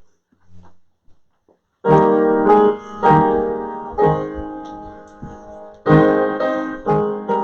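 Piano starts playing a hymn introduction about two seconds in: full chords struck and left to ring and fade, with new chords every second or so. Before it starts there are only a few faint low rustles.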